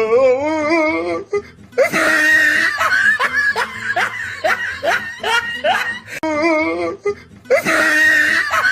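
Laughter with music: a wavering laugh for about a second, then a run of repeated short laughs over a hiss, and the same run starts over near the end.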